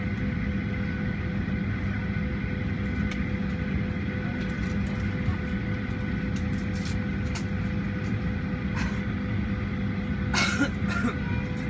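Steady hum inside the cabin of a Boeing 737-800 parked at the gate, with a constant whine over it, a few faint clicks and a brief louder noise near the end.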